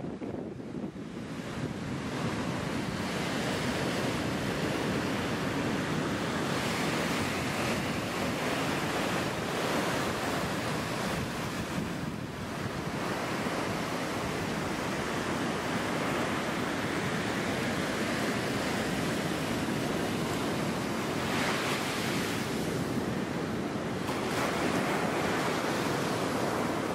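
Surf breaking and washing up the beach: a steady rushing hiss that swells now and then, with wind buffeting the microphone.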